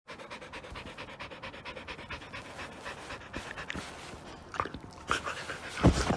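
Husky panting quickly and evenly, close to the microphone, with a couple of short high sounds about four and a half to five seconds in. Louder rustling comes in near the end as the dog noses against the phone.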